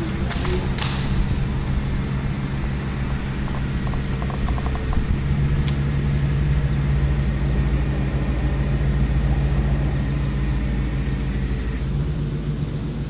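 Engine of a crane-equipped service truck running steadily, a low drone that grows a little stronger from about five seconds in and eases near the end, with a few clicks in the first second.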